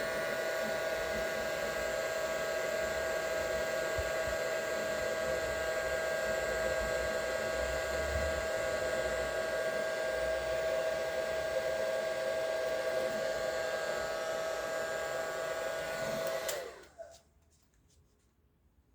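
Hair dryer running steadily with a motor whine over blowing air, heating the temperature sensor to push the reading past the fan's switch-on point. Near the end it is switched off and the whine falls away as the motor spins down.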